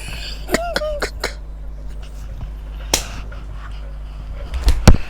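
A brief voiced sound, then a few scattered sharp clicks or taps, the loudest near the end, over a steady low hum.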